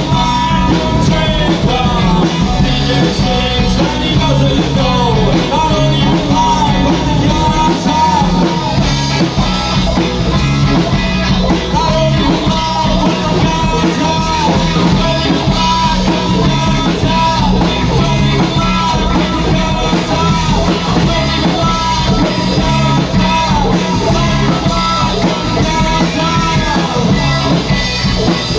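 Rock music with guitar and a singing voice, playing steadily.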